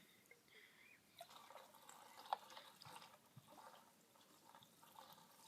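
Faint, irregular dripping and trickling of gasoline being drained from a chainsaw's fuel tank into a can.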